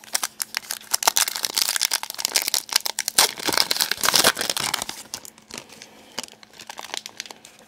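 Foil wrapper of a hockey card pack crinkling and tearing as it is opened: a dense run of crackles for about five seconds that then fades to faint rustling.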